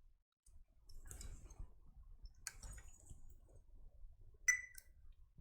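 Multimeter probes clicking and scraping against transistor legs on a power supply circuit board, with one short, high beep from the meter about four and a half seconds in.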